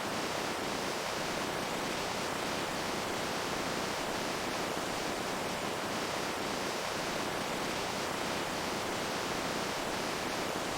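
Running water making a steady, even rush.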